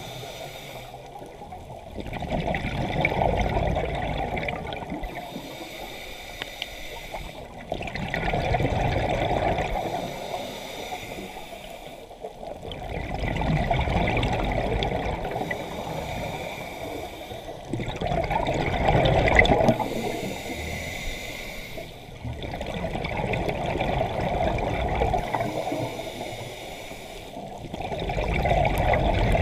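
Scuba diver breathing through a regulator underwater: each exhale sends out gurgling bubbles, about every five seconds, six times over, with quieter inhales between.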